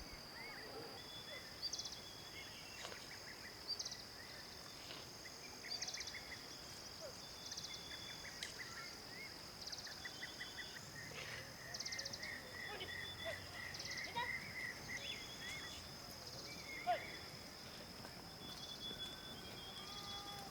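Faint countryside ambience: a steady high-pitched insect drone, with birds chirping and trilling every second or two over it.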